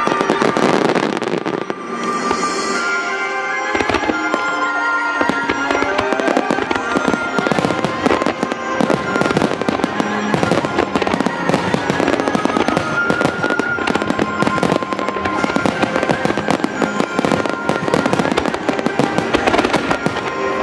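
A fireworks display with shells bursting in rapid, overlapping succession, the bursts coming thick and fast from about four seconds in, over accompanying music with sustained tones played for the show.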